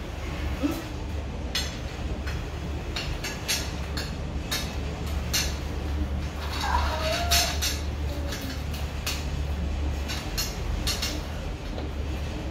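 Spoons and forks clinking and scraping against plates as a family eats, a scatter of short light clicks.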